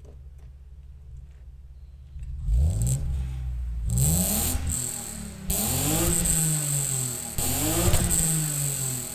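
1994 BMW E36's engine and dual-tip exhaust idling, then revved about four times from about two seconds in, each rev climbing and falling back to idle. The exhaust note is pretty quiet.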